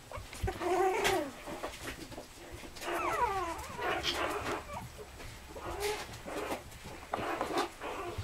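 Young spitz puppies whining, several separate calls that bend and fall in pitch.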